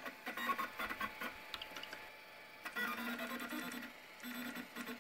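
Stepper motors of an Anycubic Kossel delta 3D printer driving the print head toward a bed mount point for leveling. They make a quiet, pitched whine in short runs that start and stop, with a pause about two seconds in.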